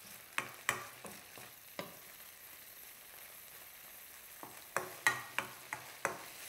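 Canned tuna sizzling in a little cooking oil in a nonstick frying pan as it is stir-fried with a wooden spatula: a steady light sizzle with sharp taps and scrapes of the spatula on the pan, four in the first two seconds and a quick cluster of them about five seconds in.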